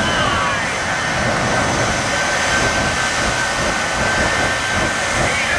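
Shockwave jet truck's three Pratt & Whitney J34 jet engines running at the start line with afterburners lit, a loud steady jet noise with a high whine over it, as fuel is dumped to throw fireballs.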